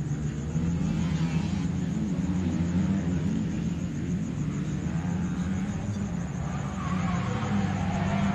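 Engine of a Nissan 180SX drift car running steadily, growing louder near the end as the car comes into the corner.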